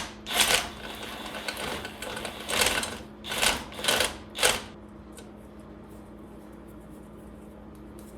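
Socket ratchet clicking in five short spells during the first five seconds as an exhaust manifold nut is worked loose, then stopping. A steady low hum runs underneath throughout.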